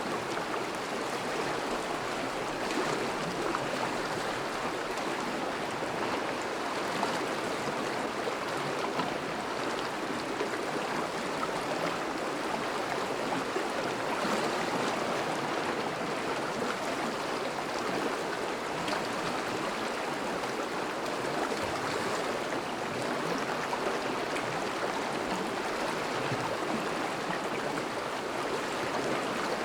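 A thawing river's current flowing steadily, a continuous rush of moving water.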